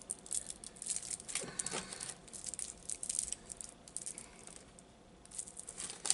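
Plastic candy wrappers crinkling as small individually wrapped hard and soft candies are handled and sorted, with light clicks and rattles of the sweets knocking together. There is a brief lull a little past the middle.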